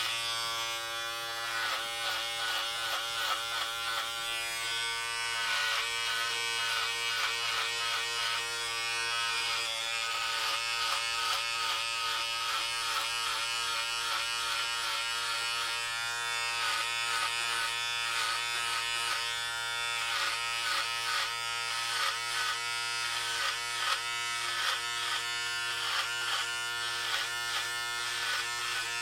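Electric hair clippers buzzing steadily while cutting hair, with frequent short rasping bursts as the blades pass through the hair.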